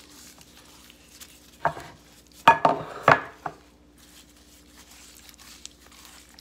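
A handful of knocks and clatters, about five in under two seconds near the middle, from a whole fish being handled and turned on a wooden cutting board while it is seasoned.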